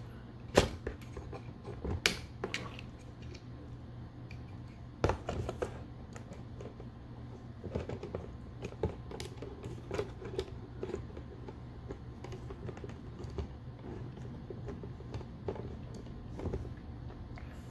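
Scattered plastic clicks and taps of a Transformers action figure being handled and posed: its joints clicking and its swords knocking, with a few sharper knocks in the first five seconds, over a steady low hum.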